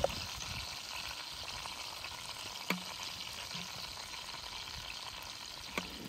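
T-bone steaks sizzling steadily in hot fat in a metal pan while a spoon bastes them, with a few light clicks of the spoon against the pan.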